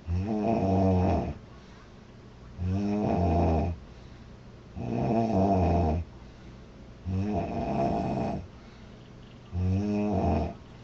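A woman snoring loudly: five snores about two and a half seconds apart, each lasting about a second, with quieter gaps between them.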